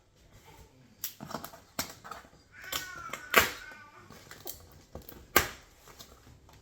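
Unpacking noises as boxed accessories are handled and set down: a string of knocks and clicks, the two loudest about three and a half and five and a half seconds in, with a short wavering squeak just before the first.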